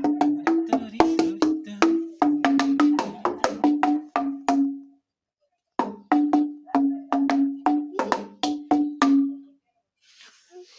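Old oak beams laid as an improvised xylophone, struck with a wooden mallet in quick runs of about four strikes a second, each ringing with its own bright note. A short break comes a little past the middle, and the playing stops shortly before the end.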